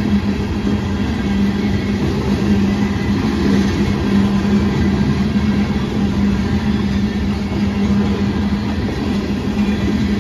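Loaded coal train's freight cars rolling past a grade crossing: a steady, loud rumble of wheels on rail with a constant low hum.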